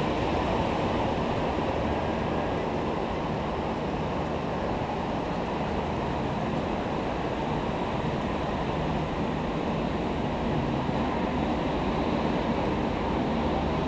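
Steady, even rushing outdoor ambience of wind and surf, strongest in the low and middle range, with no distinct events.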